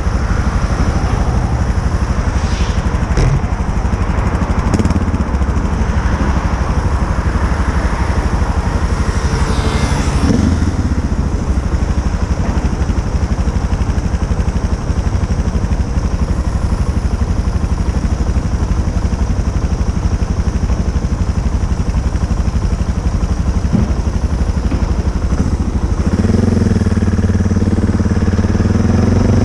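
Motorcycle engine running continuously; near the end its note becomes louder and clearer as a steady tone.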